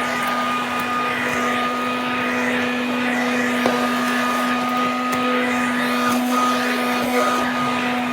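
Pre-World War II Hoover Dustette model 100 hand vacuum running steadily: a constant motor hum at one pitch over the rush of air.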